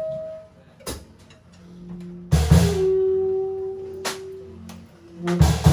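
Sparse live free jazz: saxophones hold long, steady notes over low sustained tones, broken by four separate drum-and-cymbal strikes about a second and a half apart.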